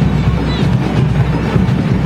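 Parade music from a marching band, loud and continuous, heaviest in the low end with drums.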